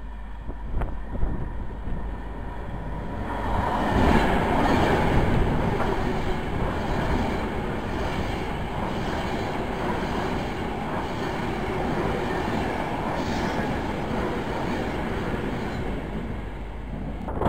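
Class 390 Pendolino electric train passing through the station without stopping: a rush of wheels on rail that swells about three seconds in, is loudest as the front goes by, and fades near the end.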